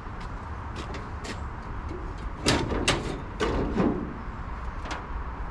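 Light clicks and a handful of louder metal clunks and knocks, about halfway through, as car parts are handled during a test fit of an air cleaner under the hood.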